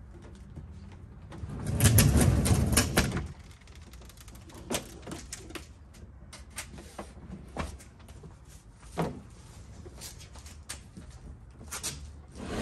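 Hard plastic boat hull scraping and knocking as it is hauled with a rope onto a pickup's tailgate and into the truck bed. There is a louder stretch of dragging and bumping about two seconds in, then scattered knocks and clicks.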